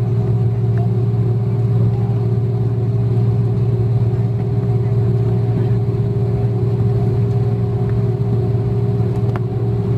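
Inside the cabin of an Airbus A330-300 taxiing after landing: its Rolls-Royce Trent 700 engines at idle, heard as a loud, steady low hum with a couple of steady tones above it.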